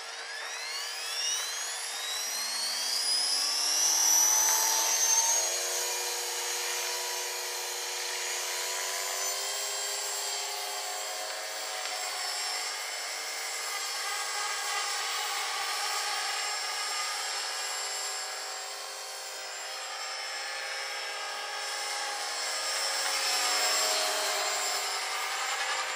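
450-size electric RC helicopter spooling up, its motor and rotor whine rising steeply in pitch over the first few seconds, then running at a steady high whine that rises and falls a little as it lifts off and flies.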